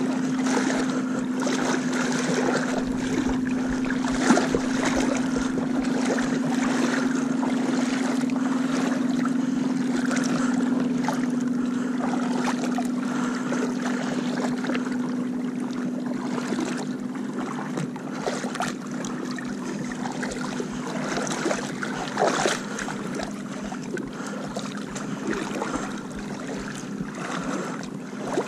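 Boat motor running at a steady pitch, with wind and water noise over it.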